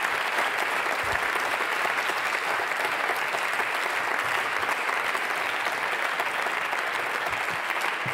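A chamber full of parliament members applauding: steady, dense clapping from many hands at once.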